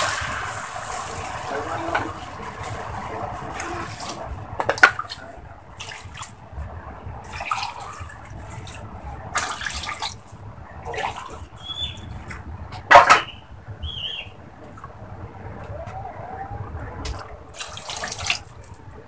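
Water poured from a jug into a marble-coated pan of rice and lentils, splashing in several pours, heaviest at the start. A few sharp knocks punctuate it, the loudest about 5 and 13 seconds in.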